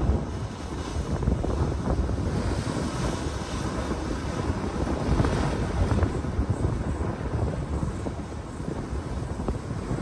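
Ocean waves surging and breaking through a gap in a coastal rock platform: steady surf noise that swells near the middle, with wind rumbling on the microphone.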